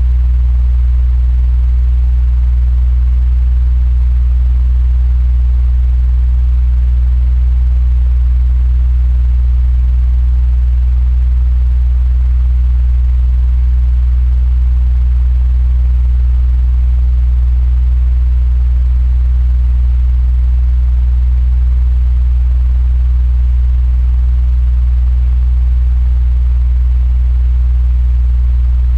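Electric fan running steadily: a deep, even low hum with a faint airy hiss above it.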